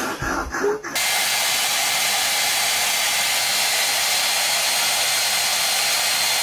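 Hand-held hair dryer running, a steady rush of blown air with a faint whine in it. It starts abruptly about a second in, after a brief voice.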